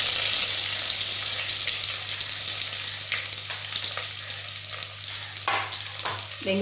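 Sliced onions and green chillies sizzling in hot sesame oil in a pan, the hiss slowly dying down as they go in. A spoon stirs them, knocking against the pan a few times in the second half.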